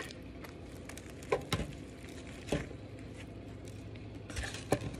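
Biting into and chewing a fried chicken sandwich: a few short, sharp crunching and mouth sounds over a low background.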